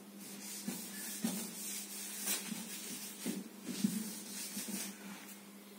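Faint, irregular scratches and rubs of a marker pen on a whiteboard, over a steady low hum.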